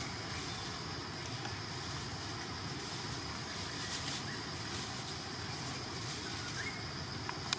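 Steady outdoor background noise with a faint, steady high-pitched whine, a few brief chirps, and a sharp click near the end.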